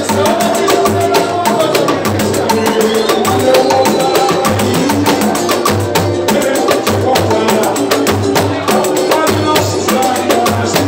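Samba music with a pandeiro played close to the microphone: fast, dense strokes of skin and jingles over a steady low beat, with melody above.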